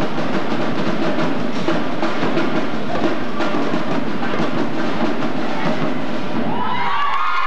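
Loud, drum-heavy music with a driving percussion beat for a drill team routine. Near the end a crowd breaks into high-pitched cheering.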